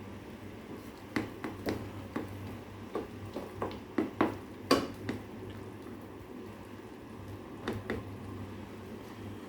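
Kitchen utensil knocking and clinking against a cooking pot: a quick run of about a dozen sharp knocks in the first half, then two more near the end, over a steady low hum.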